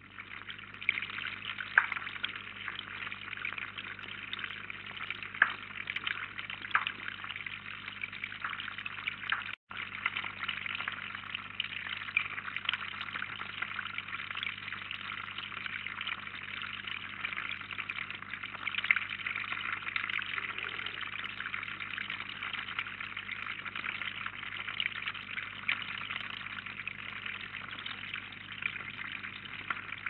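Water trickling steadily into a small garden pond, with a few sharper drips or splashes in the first seconds. A steady low electrical hum runs underneath.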